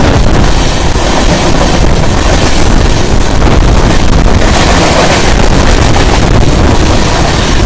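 Express train coaches rushing past close alongside a moving EMU train. A loud, steady rumble of steel wheels on rails and rushing air, with wind buffeting the microphone.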